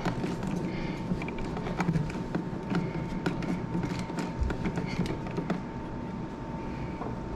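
Small scattered clicks, rubs and scrapes of stiff electrical wires and a wall outlet being pushed and worked back into an electrical box, with a faint steady high tone underneath.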